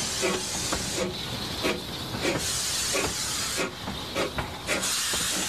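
Replica of Stephenson's Planet steam locomotive running, with a steady hiss of escaping steam and repeated short chuffs.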